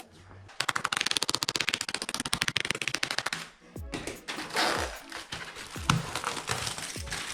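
A rapid, evenly spaced rattle of sharp clicks, like automatic fire, lasting about three seconds, followed by irregular clatter and knocks of a heavy rifle being handled.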